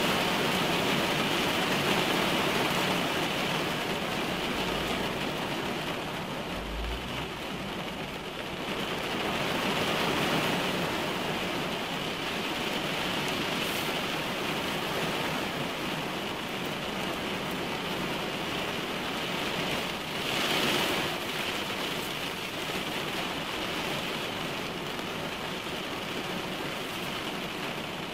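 Heavy rain falling on a car's roof and windshield, heard from inside the car as a steady hiss that swells louder a few times.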